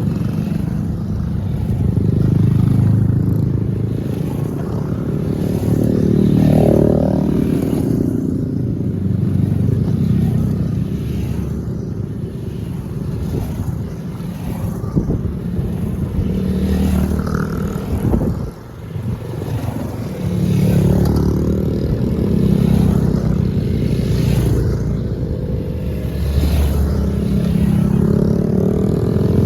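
A string of small single-cylinder Honda Monkey and Grom motorcycles riding past one after another, each exhaust note swelling and falling away as it goes by, with wind on the microphone.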